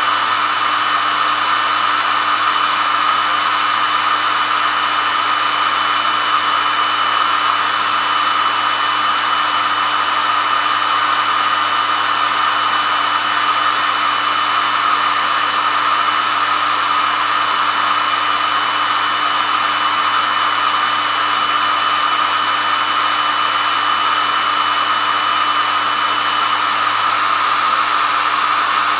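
Hair dryer running steadily: a constant rush of air with a motor whine.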